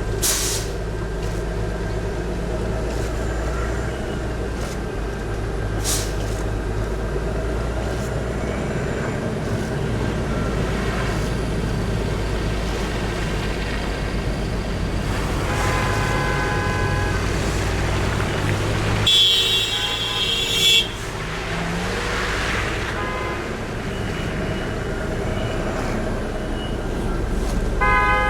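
Road traffic running in a steady low drone, with car horns honking: one honk a little past halfway, a louder two-second honk shortly after, and another at the very end.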